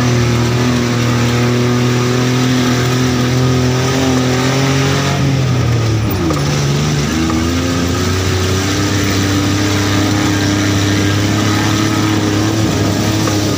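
A vehicle's engine pulling under load up a steep dirt track, a steady drone that drops in pitch about six seconds in and then slowly climbs again.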